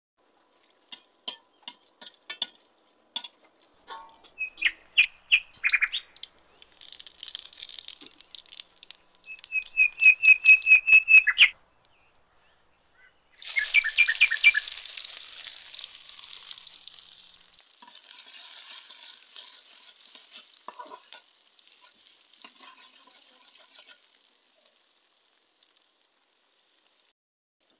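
Dried red chillies crackling and popping in hot oil in a wok. About halfway through, chopped onion goes in with a sudden loud sizzle that slowly dies down. Two runs of quick, loud, repeated bird chirps sound over the crackling, and a few more come as the sizzle starts.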